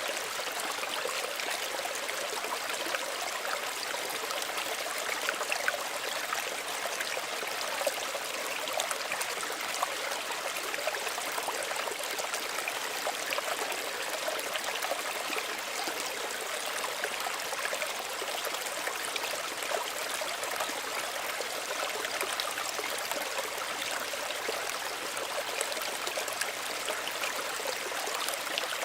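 Small stream of running water trickling and babbling steadily, with small irregular splashes.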